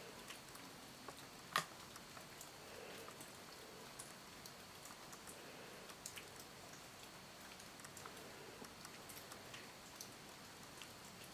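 Quiet room tone with scattered faint ticks and crackles and one sharper click about a second and a half in.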